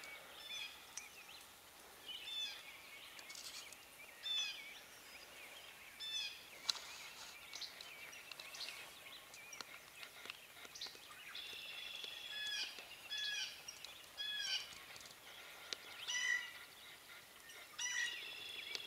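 Songbirds singing in a dawn chorus: many short, high chirps and whistled phrases, one after another, some from more than one bird.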